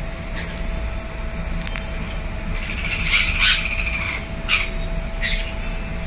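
Pet parrots and parakeets in a shop calling in short squawks: a cluster about three seconds in, then two single calls near the end. Under them runs a steady hum and a low rumble.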